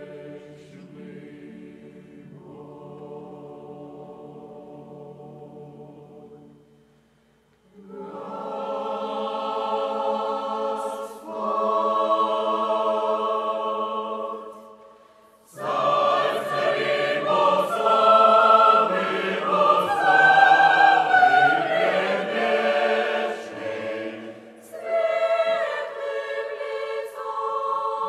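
Mixed church choir of women's and men's voices singing sustained chords in Russian. It starts softly, breaks briefly about seven seconds in, and grows to full, loud voice from about halfway.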